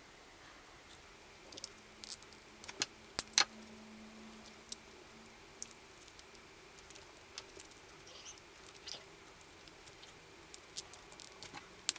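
Scattered light clicks and taps from hands handling a small circuit board and a plastic battery holder and fitting them together. The loudest are two sharp clicks about three seconds in.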